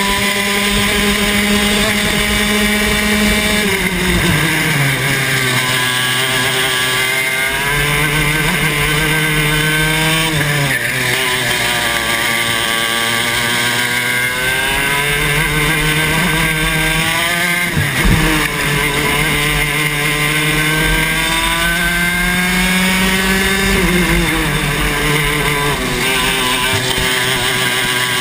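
Club 100 TKM 115cc two-stroke kart engine at racing speed, heard onboard. Its pitch drops sharply about four times as the kart slows for corners and climbs back as it accelerates out, with one brief loud bump about two-thirds of the way through.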